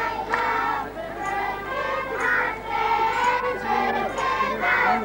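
A group of children singing a song together, accompanied by accordion.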